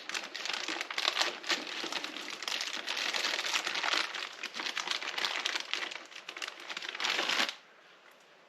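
Plastic parts bag crinkling as it is handled and opened to get at the adhesive foot pads, a dense crackling that stops abruptly near the end.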